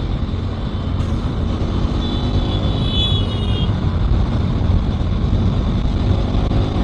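KTM motorcycle riding at steady speed: a steady engine drone under wind and road noise. A brief high-pitched tone sounds about two seconds in.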